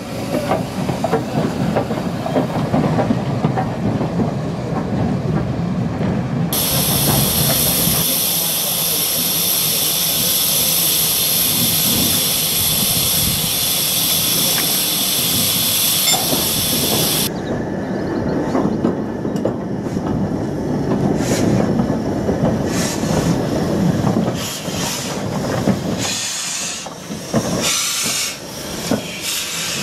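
Steam locomotives at work. First, a Class 7F 2-8-0 rolls slowly by with a low rumble. Then a steady high hiss of escaping steam lasts about ten seconds, and an Ivatt Class 2MT 2-6-0 moves off with its cylinder drain cocks open, giving a string of sharp steam blasts and hisses.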